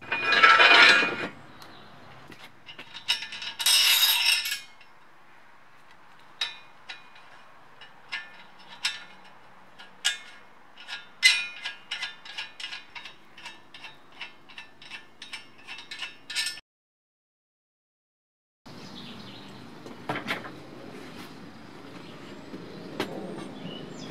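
Metal tyre irons clinking and knocking against a car wheel rim as the bead of a new tyre is levered on by hand: a run of sharp clinks, a few a second, after two short scraping rushes. The sound cuts out completely for about two seconds and comes back over a steady hiss with a few more knocks.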